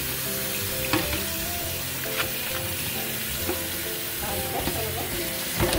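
Tap water running into a stainless-steel sink while live blue crabs held in metal tongs are scrubbed with a brush, with a few sharp clicks of shell and tongs against the sink.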